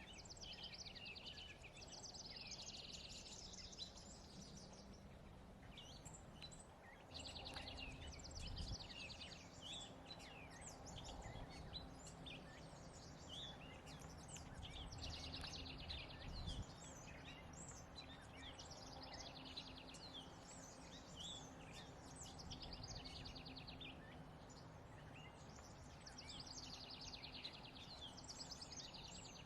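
Songbirds singing: rapid trilled phrases repeated every few seconds over a faint steady low hum.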